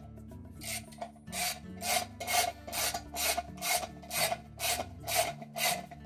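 Ratchet with a socket and extension being swung back and forth, each backstroke a short rasp of pawl clicks, about two strokes a second starting about half a second in: driving in the bolts that hold a new washer bearing and seal (hub and seal kit) assembly to the tub support cover.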